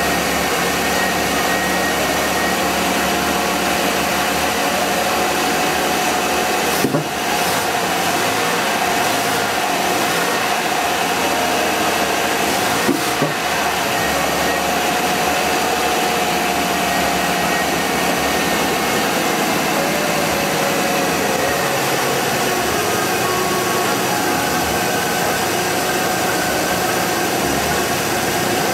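Van's gasoline engine idling on homemade vapor-carburetor fuel, a steady running noise with a held hum, sluggish because the vapor mixture is short of air. Two brief knocks sound about six seconds apart, and the fast idle kicks down to a lower idle.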